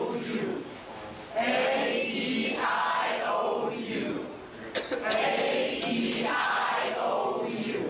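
A group of people chanting together in unison, in short repeated phrases with brief pauses between them.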